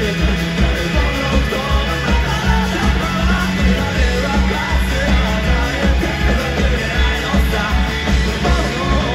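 Live rock band playing loud, with a fast, steady drum beat and a voice singing over it, as heard from the audience in a concert hall.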